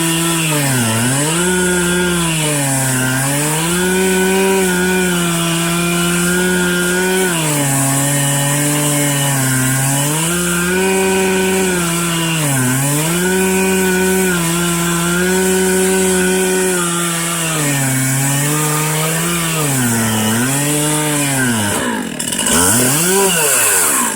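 Stihl MS 441 C-M Magnum two-stroke chainsaw running at high revs while ripping a red oak log lengthwise, with its pitch repeatedly sagging under load and picking back up. Near the end the revs drop and rise quickly a few times.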